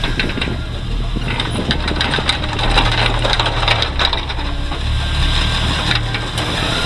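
Plow Jeep's engine running steadily, with many clicks, rattles and crunching sounds over it.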